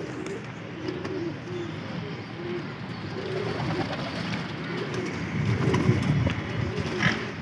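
Domestic pigeons cooing over and over, with water splashing and wings flapping as the birds bathe in a shallow tray; the splashing grows louder for a couple of seconds before the end.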